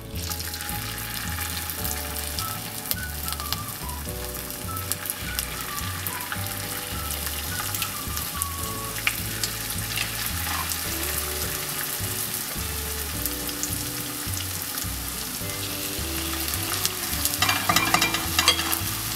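Batter-coated chicken pieces shallow-frying in hot oil: a steady sizzle that starts suddenly as the pieces go into the pan. Near the end a slotted spoon stirs through them, the sizzle growing louder with clicks of the spoon against the pan.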